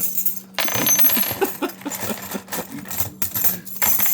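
A heap of loose metal keys clinking and jangling together, starting about half a second in.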